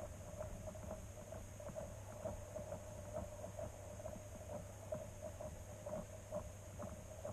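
Steady low hum with faint, irregular ticks and crackles throughout, as picked up through an underwater camera's housing beneath the ice.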